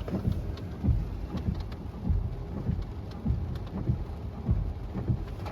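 Rain on a car, heard from inside the cabin, over a steady hiss with many irregular low thuds.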